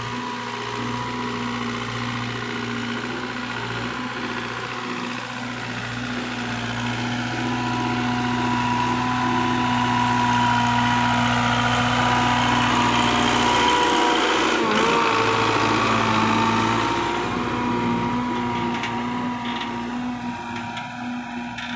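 A Belarus 510 tractor's four-cylinder diesel engine runs steadily under load as it pulls a laser land leveler over the field. It grows louder as it comes close about halfway through, then fades as it moves away.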